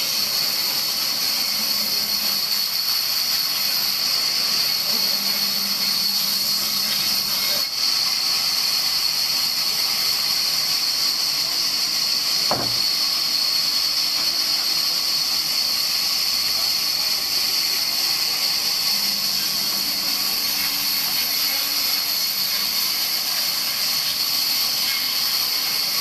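Large vertical band saw running and cutting through a dry log slab, a steady high hiss of blade in wood with the machine's hum under it. A single knock comes about halfway through.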